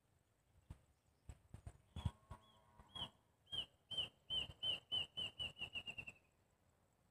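A bird's call: a run of sharp chirps on one high pitch that come closer and closer together, speeding up over a few seconds before stopping.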